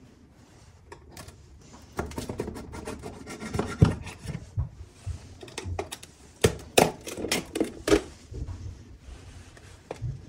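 A knife scraping and prying at the hardened dough seal around an aluminium pot's lid: rasping scrapes broken by sharp cracks and clicks as the dry crust gives way, loudest about four seconds in and again between six and eight seconds in.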